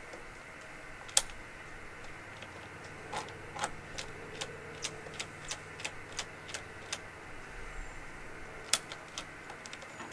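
Light, sharp mechanical clicks and taps, irregular, with a run of about two to three a second in the middle, over a faint steady hum. The 1984 Honda TRX200 quad's engine is not running.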